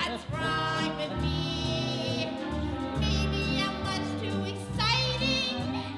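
A woman singing a solo musical-theatre song with long held notes and vibrato, accompanied by a small pit band with an upright double bass playing underneath.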